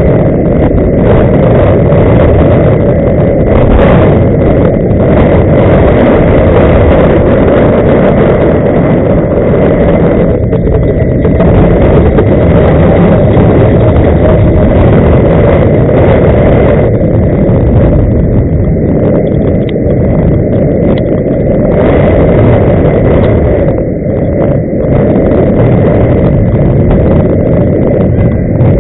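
Loud, steady low rumble of wind buffeting the microphone while moving, with a faint steady high whine under it.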